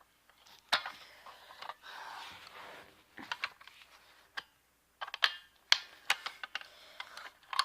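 Scattered clicks and taps, with a short stretch of scraping about a second and a half in, from handling a BG10 fire alarm pull station and working its screw back in. A quicker run of clicks comes in the second half.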